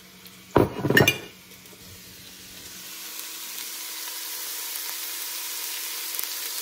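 Diced onion, carrot and celery sizzling in hot beef lard in an enamelled Dutch oven. Two knocks come about half a second and a second in, then the sizzle grows louder and holds steady.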